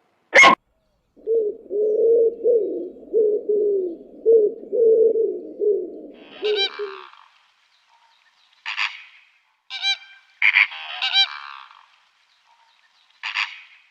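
A quick click, then a run of low, repeated animal calls for about six seconds, followed by a series of short, separate goose honks.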